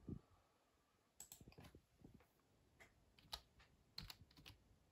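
Faint computer keyboard typing: scattered key clicks in small clusters.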